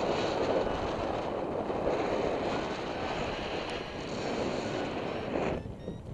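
Wind rushing over the microphone of a paraglider in flight, a steady rough rush that drops away sharply about five and a half seconds in.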